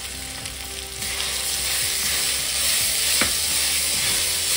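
Grated raw turmeric sizzling in hot ghee in a steel kadhai while a wooden spatula stirs it. The sizzle grows louder about a second in, with a single sharp tap a little past three seconds.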